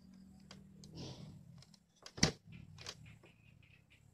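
Light clicks and knocks from a hand working a homemade wooden temperature-controller box for a pyrography pen, with one sharp click about two seconds in and a smaller one just after.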